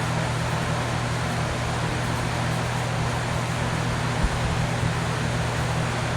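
Steady room noise: a low hum with an even hiss over it, with one small knock about four seconds in.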